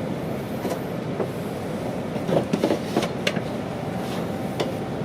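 Running noise heard inside a moving E2 series Shinkansen car: a steady rumble with scattered short clicks and knocks.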